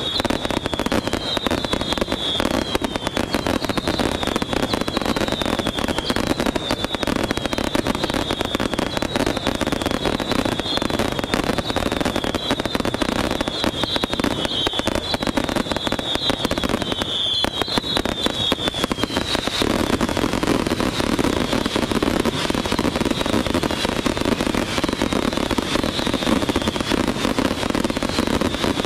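Aerial fireworks display in a dense barrage: rapid, continuous bangs and crackling from many shells bursting at once. Through the first two-thirds, short high whistles repeat over the barrage; they fade after about twenty seconds.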